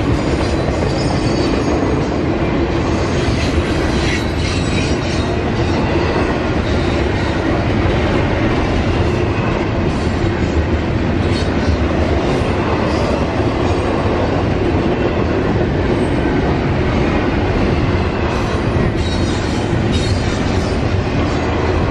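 Double-stack container train of freight well cars rolling past at close range, its steel wheels running on the rails with a steady, loud rumble. Faint high squeals come through near the start and again near the end.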